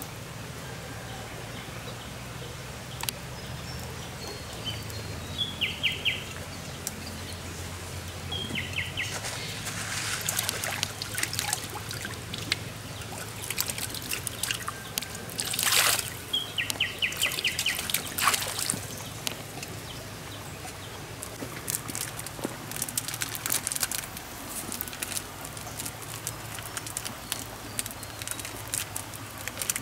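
Stream water scooped up in a plastic cup and poured, splashing and trickling, loudest about halfway through. A bird's short rapid trill sounds three times, and light clicking runs through the last third.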